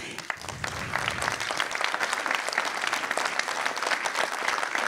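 Audience applauding: dense clapping that builds over the first second, then holds steady.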